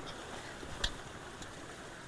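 Steady rush of creek water pouring through a road culvert, with one sharp knock a little under a second in.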